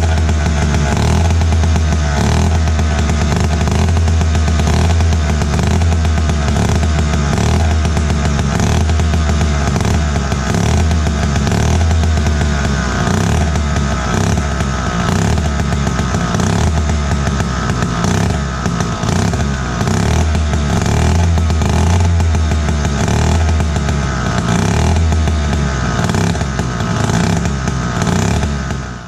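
David Bradley 360 gear-drive chainsaw's single-cylinder two-stroke engine running steadily on the bench.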